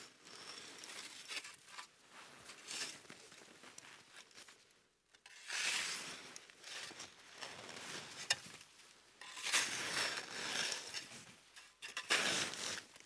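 Heavy snow being scraped and pushed off a canvas tent roof with a long-handled tool: irregular crunching, swishing strokes, with a brief pause about five seconds in.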